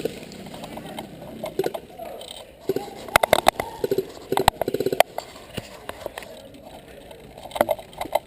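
Airsoft guns firing short rapid full-auto bursts, clusters of sharp shots about three to five seconds in and another brief burst near the end.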